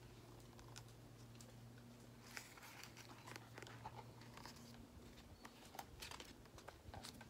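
Near silence: a faint steady low hum with a few soft rustles and clicks from a hardcover picture book being handled.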